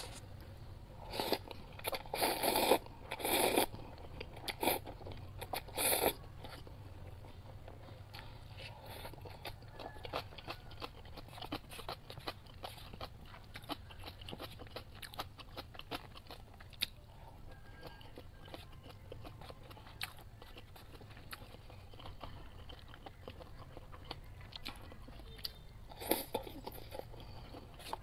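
Close-miked eating of instant cup ramen noodles: chewing and small wet mouth clicks throughout, with a cluster of louder mouthfuls in the first six seconds and another near the end.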